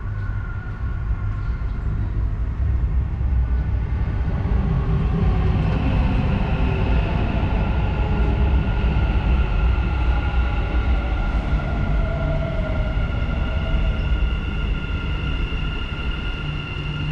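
Dubai Metro train pulling into an elevated station: a low rumble with a steady electric whine. It grows louder about two seconds in and eases off near the end.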